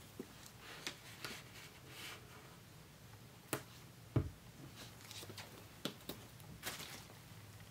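Handling of a shrink-wrapped cardboard iPad box: scattered light taps, clicks and rustles from fingers on the box, with a dull thump about four seconds in.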